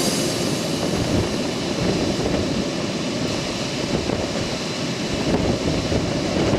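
Strong wind buffeting the camera's microphone over rushing water while windsurfing in gusty typhoon wind, a steady rough noise with no pitch.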